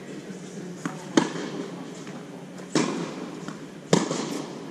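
Tennis ball struck by racquets strung with Signum Pro Firestorm and bouncing on a hard court during a baseline rally: sharp pops that ring briefly in an indoor hall. The loud hits come about a second in, near three seconds, and near the end; the last is the near player's forehand.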